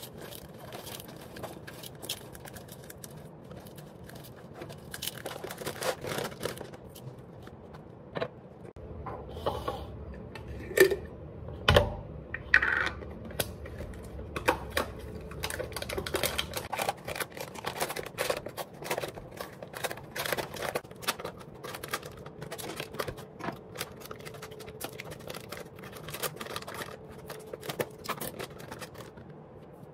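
Plastic packaging crinkling and rustling, with many small clicks and taps as dry goods and containers are handled over a plastic bowl on a countertop, and one louder knock near the middle.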